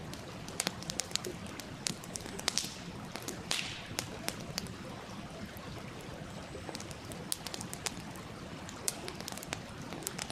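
Small wood campfire crackling, with sharp irregular pops and snaps scattered throughout and a couple of short hisses, over the steady rush of a stream.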